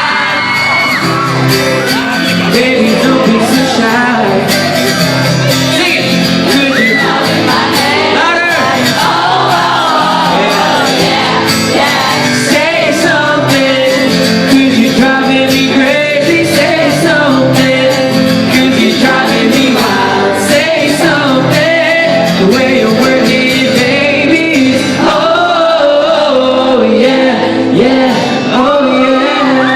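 A male pop singer sings live over a loud backing track, with shouts from the audience mixed in.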